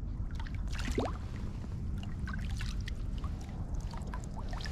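Water dripping and trickling off a kayak paddle, with small splashes and light clicks over a steady low rumble of wind.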